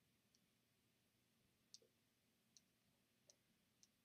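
Faint, sharp clicks of remote control buttons being pressed, about five of them at uneven intervals, over near silence.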